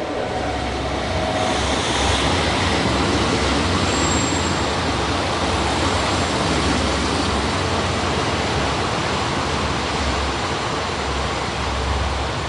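JR Kyushu KiHa 185 diesel railcar moving through the station close by: a steady low engine drone under the wider noise of wheels on rail.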